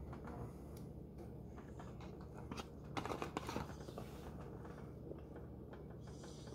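Faint eating and handling noises in a quiet room: small scattered clicks and rustles, a short cluster about three seconds in, as chicken nuggets are dipped in sauce and eaten.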